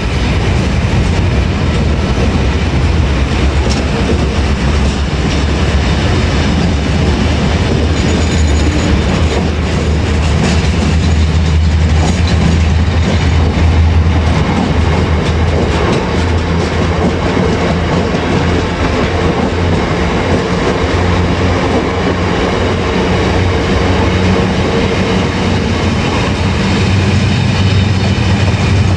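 Diesel-hauled freight train running past, with a steady low engine drone under the continuous rumble of the wagons on the rails.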